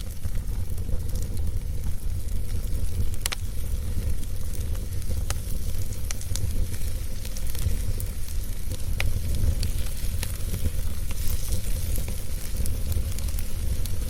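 Fire burning in a fireplace: a steady low rumble with scattered sharp crackles and pops every second or two.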